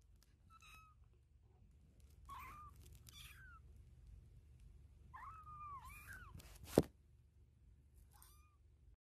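Kittens mewing faintly: a handful of short high-pitched mews, with a longer two-part mew about five to six seconds in, over a low hum. A single sharp click just before seven seconds is the loudest sound.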